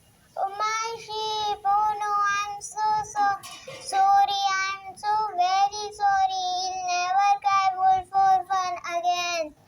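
A child singing a tune in a series of held notes, starting about half a second in and ending just before the close.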